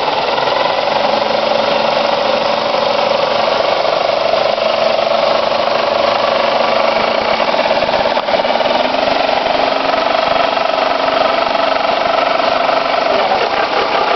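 2005 Pontiac G6's engine held at raised revs, making a loud, steady mechanical noise the owner calls a strange engine noise. The engine note sags slightly over the first few seconds, then climbs back up from about the middle on.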